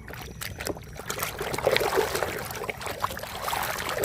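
Water splashing and trickling as a muddy toy cement mixer truck is washed, with irregular small splashes and knocks.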